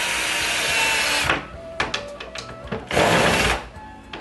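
Hitachi cordless drill/driver running as it drives screws into a cabinet frame, first in a run lasting about a second and then again in a short burst near the end.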